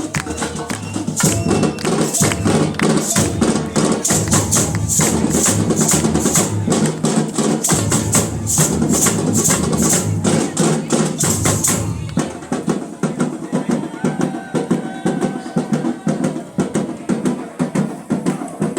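Samba-style percussion band (batería) playing a fast, driving rhythm of bass drums, snare drums and shakers. The bright high accents stop about twelve seconds in and the playing becomes lighter.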